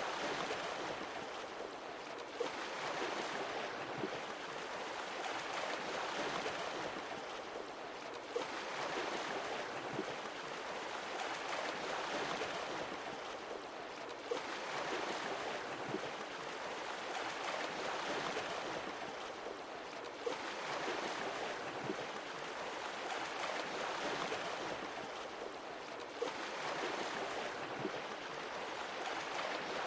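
Sea waves washing ashore, each wave swelling and falling back about every six seconds.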